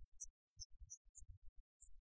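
Near silence, broken by scattered faint, very short blips, some high and some low.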